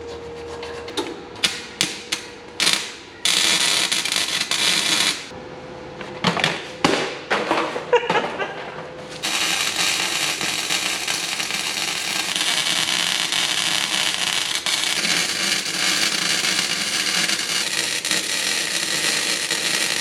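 Harbor Freight welder's arc crackling as it welds the steel exhaust pipe joint to the muffler. There are a few clanks of metal being handled, then a two-second burst of welding, more clanks, and from about nine seconds in a long steady weld bead.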